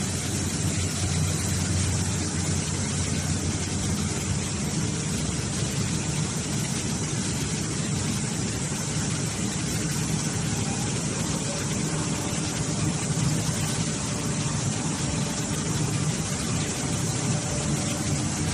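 Hydraulic baler running steadily: an even low hum from its motor and hydraulic pump with a hiss over it, and no knocks or pauses.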